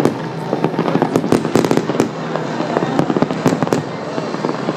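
Fireworks going off in a rapid, irregular run of sharp bangs and crackles, several a second.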